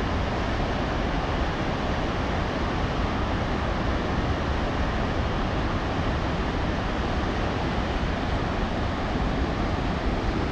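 Kootenai Falls' water rushing over the rocks of the Kootenai River: a loud, steady, unbroken wash of falling water.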